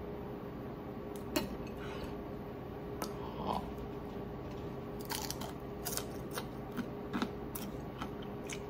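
Scattered crisp crunches and crackles of a whole deep-fried ponyfish (hiiragi, fried without batter) being pulled apart and eaten, over a faint steady hum. The crunches start a little over a second in and come thicker in the second half.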